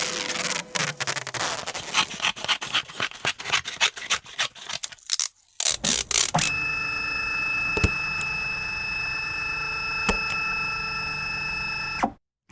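Office sound effects: rapid, irregular mechanical clicking for about six seconds. Then an electric office machine runs steadily with a high whine and a couple of single clicks, stopping abruptly near the end.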